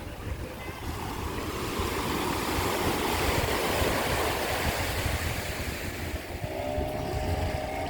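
Sea waves washing up the beach, the surf noise swelling through the middle and easing off, with wind rumbling on the microphone. A faint steady tone comes in near the end.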